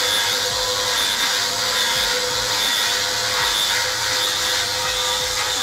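Angle grinder running steadily with a flap disc pressed against a steel air-compressor tank, grinding off the paint down to bare metal. A steady motor whine sits over the rasp of the abrasive on steel.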